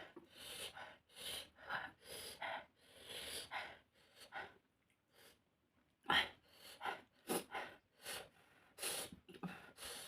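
Close-up eating sounds of someone eating spicy fish: a run of short smacking, sucking and sharp breathing noises, with a pause of near silence about halfway through.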